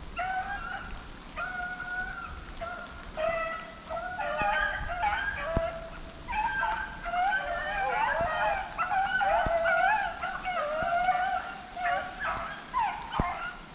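A pack of rabbit-hunting hounds baying together in drawn-out, overlapping calls: the dogs are in full cry on a rabbit's trail. A few sharp clicks sound among the baying.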